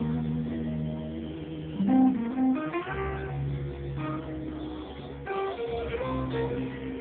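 Acoustic guitar played solo: single plucked melody notes ringing over held bass notes, with new notes struck about two, three and five seconds in.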